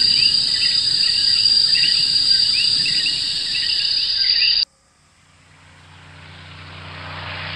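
A steady, high-pitched drone of insects with small bird chirps over it, which cuts off abruptly about four and a half seconds in. A scooter engine then approaches, growing steadily louder.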